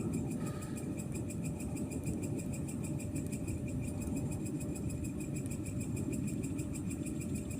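Aircraft passing high overhead: a steady, low rumble that holds level. A faint, rapid, high pulsing runs above it.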